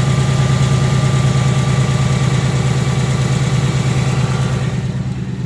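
A 2018 Ford Mustang GT's 5.0 Coyote V8 idling steadily, with a thin steady whine above the low, even engine pulse. The higher part of the sound fades about five seconds in.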